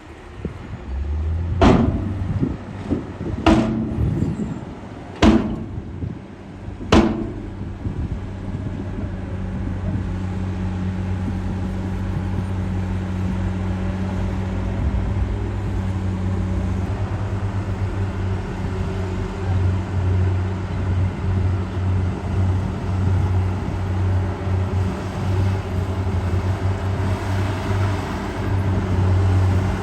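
Heavy diesel construction machinery running, a steady low engine drone, with four loud bangs about two seconds apart in the first seven seconds.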